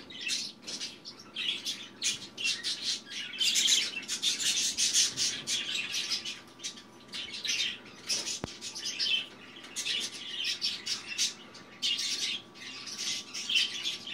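Budgerigar chattering: a continuous run of quick, high chirps and clicks.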